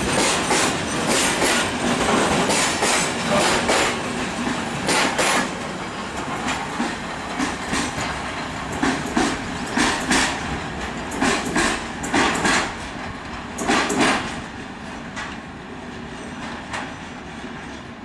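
Open-top freight wagons rolling past, their wheels clattering over rail joints in irregular groups. The clatter fades over the last few seconds as the end of the train draws away.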